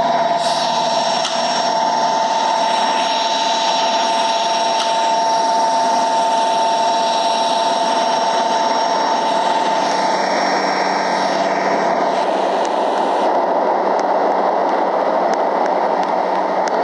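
Air conditioner running: a steady loud whooshing hum with two steady tones that drop out about ten seconds in.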